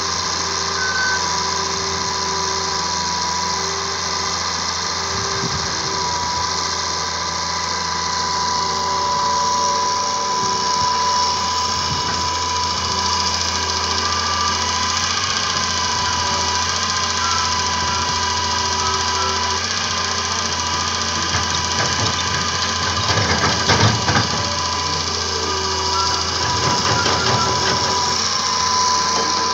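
Hitachi hydraulic excavator's diesel engine running steadily under working load, with a constant high whine over it. A short cluster of knocks and clatter comes a little past two-thirds of the way through.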